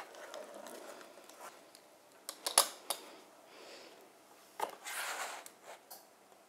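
Pizza-cutter wheel cutting through a baked pizza on a metal baking tray: scattered clicks and knocks of the blade and utensils against the tray, the sharpest about two and a half seconds in, another near four and a half seconds, then a short scrape.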